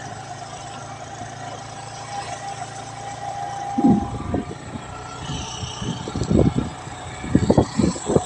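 Vehicle engine running with a steady hum while riding along. From about four seconds in, wind gusts buffet the microphone.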